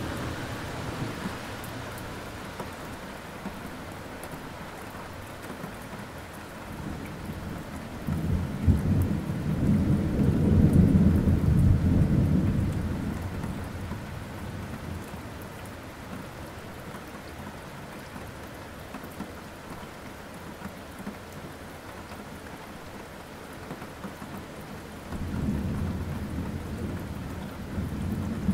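Steady rain with rolling thunder. A long low rumble builds about eight seconds in, is loudest a few seconds later, then dies away, and another rumble rises near the end.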